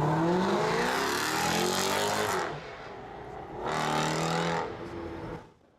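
Car engine revving: the pitch climbs for about two seconds, then falls away, and a shorter rev at a steady pitch follows about a second later before it fades out.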